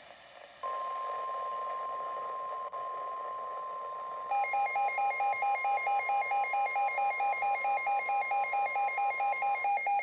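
Emergency alert attention tone: a steady single tone over radio static starts about half a second in. About four seconds in, a rapid electronic beeping of roughly four beeps a second joins it, typical of a weather radio receiver's alarm set off by the alert. The steady tone stops near the end while the beeping goes on.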